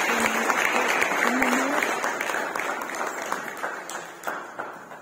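Audience applauding in a hall, the clapping dying away over the last couple of seconds into a few scattered claps.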